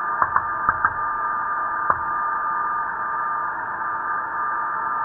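Mission control audio loop between callouts: a steady, narrow radio-channel hiss with a thin steady tone, and a handful of sharp clicks, four in the first second and one about two seconds in.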